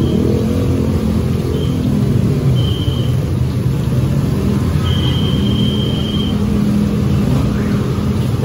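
Battered banana pieces frying in hot oil in a wok, turned with metal tongs, over a loud, steady low rumble of engines whose pitch rises and falls, like road traffic passing.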